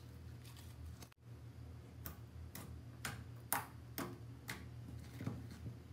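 Fingers poking and pressing into glossy pink slime, giving a run of sharp wet clicks and pops about two a second from about two seconds in, over a steady low hum.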